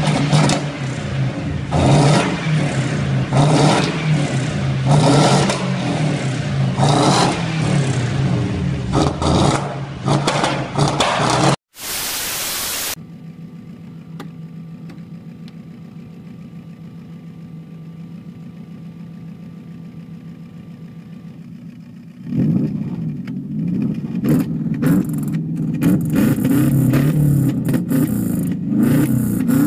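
Lada Priora four-cylinder engines through loud tuned exhausts. The first is revved in repeated blips about once a second. After a cut and a brief hiss, a second idles with a steady low hum, then about three-quarters of the way through it is revved again, louder and rougher.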